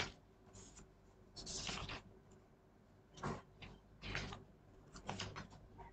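Faint, intermittent paper rustling in several brief soft bursts, as textbook pages are leafed through.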